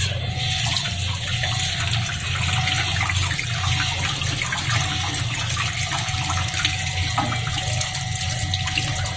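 Tap water running onto an opened mud crab as hands rinse mud from its shell and body, the stream splashing with small ticks of handling, over a steady low hum.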